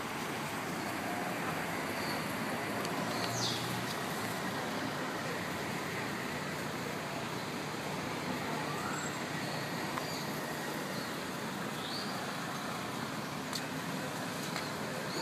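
Steady background hum of distant traffic, with a few brief high chirps.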